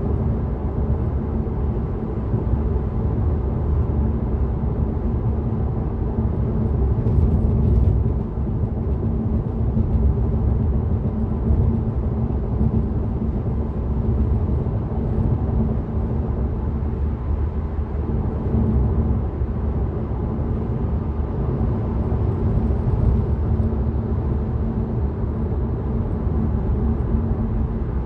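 Steady road and tyre rumble heard inside the cabin of a Tesla electric car driving on Full Self-Driving, with no engine note.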